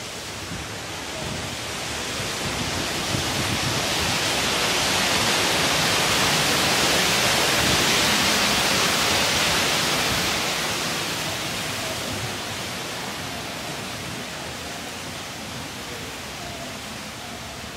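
Rushing water, swelling to its loudest about halfway through and then fading again.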